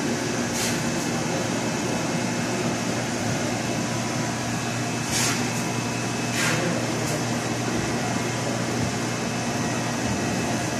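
Steady mechanical hum and hiss, with a few short hissing sounds about half a second in and again around the middle.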